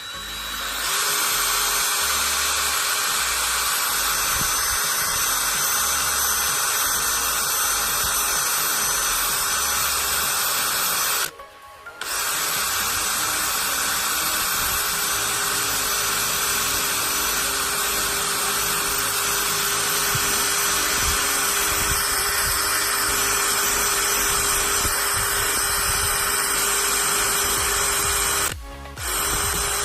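18-volt cordless drill running steadily with its bit pressed into an iPhone's glass screen. It stops briefly about eleven seconds in, then runs on and stops near the end.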